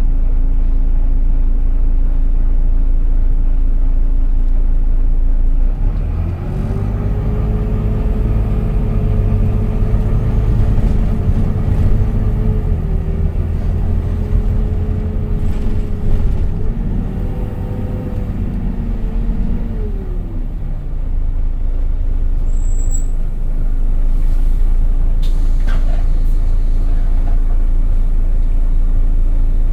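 Volvo B9TL double-decker bus engine idling with a steady whine, then pulling away and running louder under load, with a brief dip in pitch at a gear change about 13 seconds in. It eases off and settles back to idle about 20 seconds in, with a few sharp clicks near the end.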